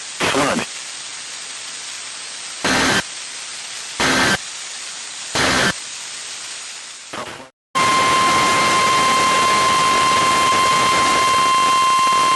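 Weather radio broadcast over a steady static hiss: the synthesized voice ends, then three short digital data bursts about a second and a half apart, the alert's end-of-message code. After a brief dropout, a loud steady alert tone, the weather radio's 1050 Hz warning tone, begins about eight seconds in.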